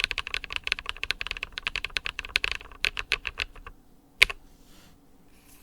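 Typing on an ID80 mechanical keyboard with lubed Glorious Panda tactile switches and PBT Cherry-profile keycaps: a fast, steady run of keystrokes that thins out about two and a half seconds in. A few scattered strokes follow, then one louder keystroke about four seconds in, and the typing stops.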